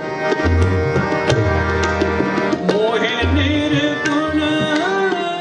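Sikh shabad kirtan: two harmoniums hold sustained chords under a man's voice singing with sliding notes, while tabla strokes, with ringing low bass thuds, keep the beat.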